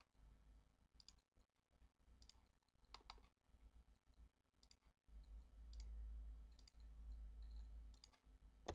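Near silence, with scattered faint clicks of a computer mouse's scroll wheel and buttons over a low hum, and a sharper click right at the end.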